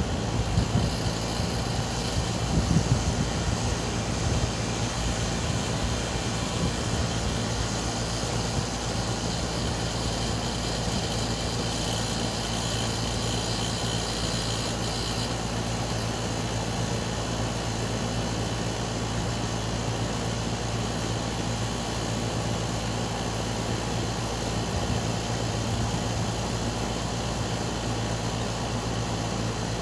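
Air conditioner running with a steady low hum and a higher hiss that stops about halfway through, after a few knocks in the first seconds; this is the weird noise it is making.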